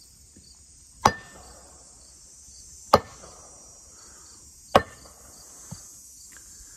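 Three sharp wood knocks struck on a tree trunk, evenly spaced about two seconds apart: a deliberate series of three used as a signal to make Bigfoot aware of someone in the area.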